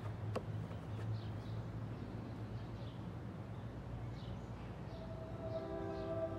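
Outdoor ambience: a low steady hum with faint bird chirps repeating throughout. Sustained musical tones fade in about five seconds in.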